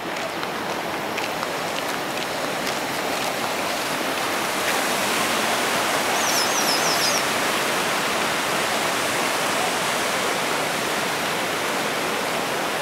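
Fast, shallow mountain stream rushing over rocks: a steady rush of water that swells a little around the middle. A short run of high chirps sounds briefly about six seconds in.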